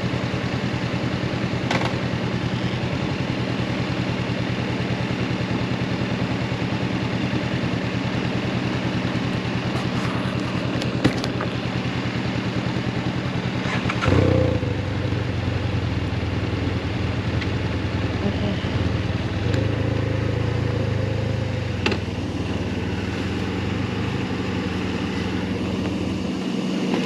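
Motorcycle engine idling steadily. About fourteen seconds in, after a knock, a deeper engine sound joins; it drops away near the end.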